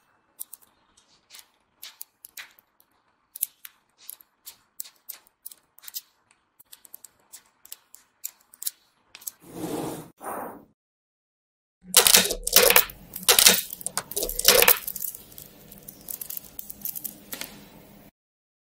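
Small magnet balls clicking sharply as they snap onto a flat sheet of magnet balls, a sparse run of single clicks. After a brief whoosh about ten seconds in, a denser, louder clatter of balls snapping and rattling as the magnet-ball panels are folded up.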